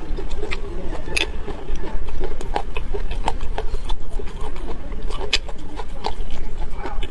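A person chewing food close to the microphone, with a quick irregular run of mouth clicks and smacks over a steady low hum.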